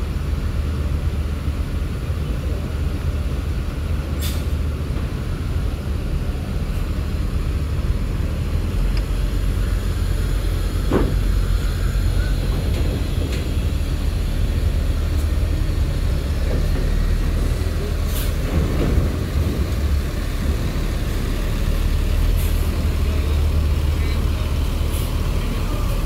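Large bus diesel engines running in a steady low rumble as coaches drive up the ramp onto a ferry. A few short air-brake hisses stand out, at about four seconds in, about eighteen seconds in and near the end.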